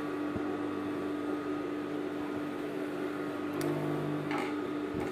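Juki industrial sewing machine's motor humming steadily while the machine is switched on but not stitching. A single sharp click a little past three and a half seconds in, then a brief rustle of fabric being handled.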